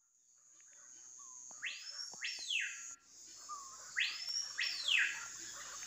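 Bird calls: two calls a couple of seconds apart, each a quick sweep up followed by a sweep back down, over a steady high-pitched drone.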